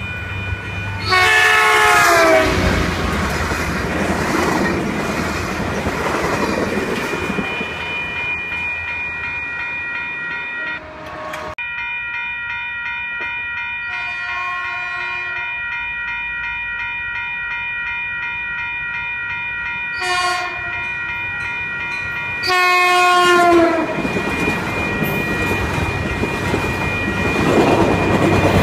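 Caltrain passenger train's locomotive horn blowing as the train approaches, the first blast loud with its pitch sagging as it nears, then rumbling past. The grade-crossing warning bells ring steadily, with further horn blasts: a faint one, a short one and a long loud one. Near the end the train rumbles past the crossing, growing louder.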